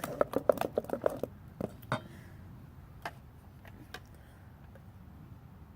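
Glue slime being stirred in a bowl right after borax activator goes in: a quick run of wet, sticky clicks for about the first second, then a few single clicks at wider gaps, fading away.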